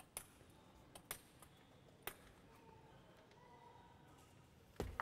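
Table tennis ball bounced three times, faint sharp clicks about a second apart, as the player readies his serve. A louder, fuller sound starts just before the end.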